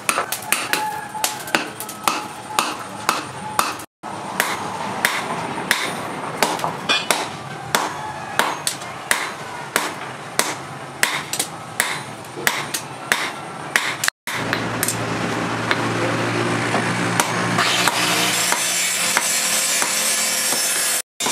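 Hand hammer striking a chisel set on a red-hot steel sprocket on a small steel anvil, cutting the hot steel with sharp ringing metal blows about two a second. After about fourteen seconds the blows give way to a steadier hum.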